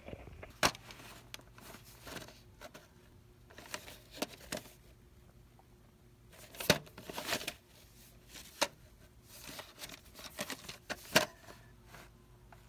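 Handling noise of a VHS tape in its cardboard sleeve being picked up and turned over in the hand: scattered clicks and rustles at irregular intervals, the loudest about two-thirds of the way through and near the end.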